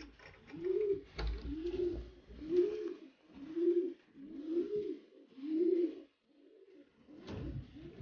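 Racing pigeons cooing: a run of low, rounded coos about one a second, becoming denser and overlapping near the end.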